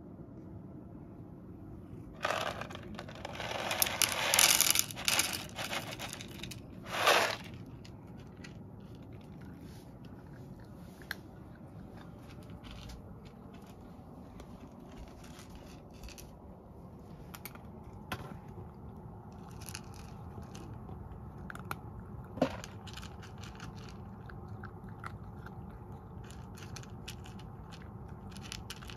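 About two seconds in, a few seconds of loud rustling and rattling. After that, a cat crunches dry food from a small ceramic bowl: faint scattered crunches and clicks of kibble against the bowl.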